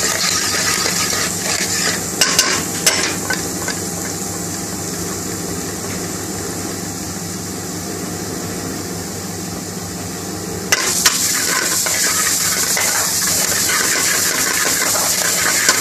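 Ginger and garlic paste frying in hot vegetable oil in a pan, a steady sizzle, with a few sharp clacks of a stirring utensil about two to three seconds in. Near two-thirds of the way through the sizzle suddenly grows louder.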